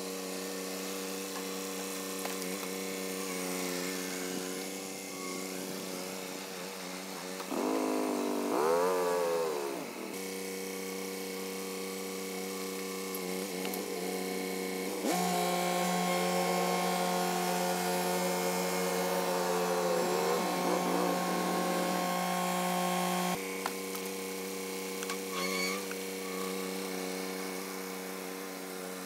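John Deere 3032E compact tractor's three-cylinder diesel engine running as the tractor works its loader grapple, the engine note rising and falling about eight seconds in and running louder from about fifteen to twenty-three seconds in.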